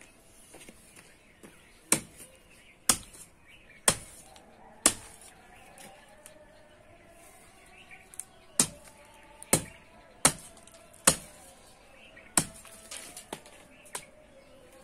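Large knife or machete chopping into plant stems. Sharp blows come in two runs about a second apart, four in the first run and about five in the second, with lighter knocks near the end.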